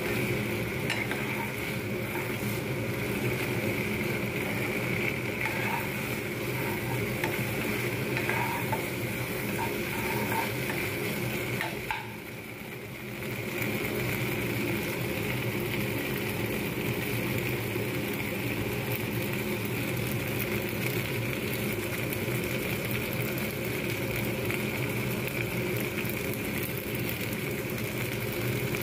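Pasta with onion and capsicum sizzling as it stir-fries in a non-stick pan, with a steel spatula stirring and scraping through it over a steady background hum. The sound drops briefly about twelve seconds in.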